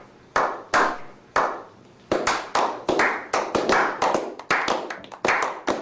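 Hand claps: three spaced out at first, then a quick run of about four claps a second.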